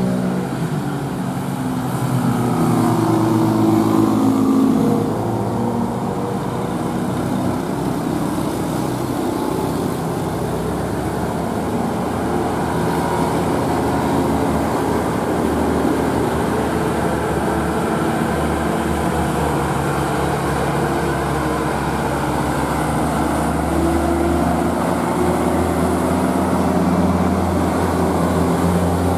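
Heavy diesel truck engines running under load as the trucks climb a steep grade in slow traffic. The engine note is steady, with a louder stretch a couple of seconds in.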